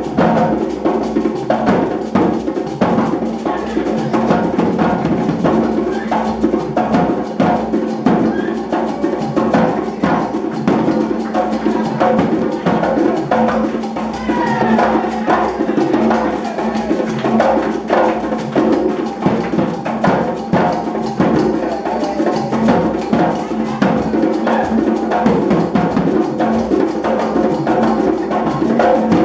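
Live hand-drum ensemble playing without a break, a dense run of drum strikes layered over one another.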